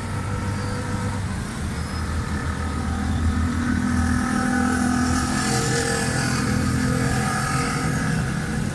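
A car engine running steadily nearby, getting somewhat louder about three seconds in.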